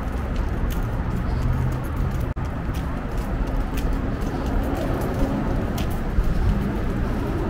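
Steady city-street ambience: a low rumble of traffic, with footsteps on the paved sidewalk ticking about every three-quarters of a second. The sound cuts out for an instant a little after two seconds in.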